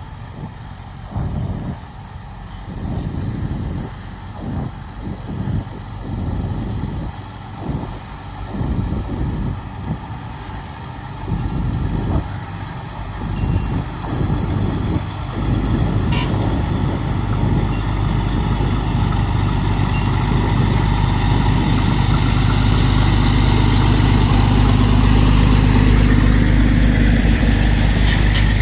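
Gusts of wind buffeting the microphone, then a fire truck's engine running and growing louder as the truck approaches, ending in a loud, steady low drone.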